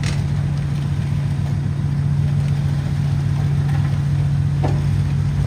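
A vehicle engine idling steadily: a constant low hum that holds its pitch throughout.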